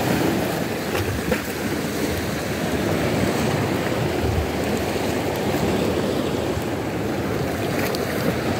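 Rough sea: waves washing and breaking on the shore, a steady rushing noise.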